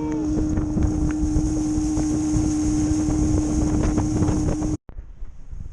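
Motorboat engine running steadily under way, with heavy wind buffeting the microphone. It stops abruptly near the end, leaving only lighter wind noise.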